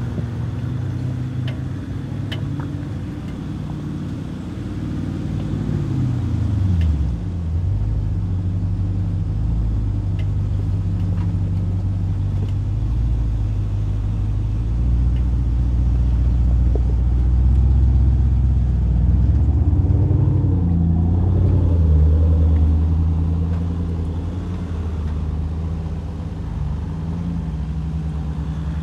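Off-road 4x4 vehicle engine running at trail speed under changing load. Its pitch drops sharply about six seconds in, then it runs louder for a stretch in the middle before easing off.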